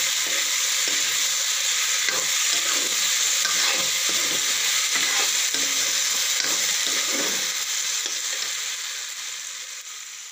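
Marinated chicken pieces and sliced onions sizzling in hot oil in a kadai, dry-frying without water, while a spatula scrapes against the pan in repeated stirring strokes. The sizzle fades away over the last couple of seconds.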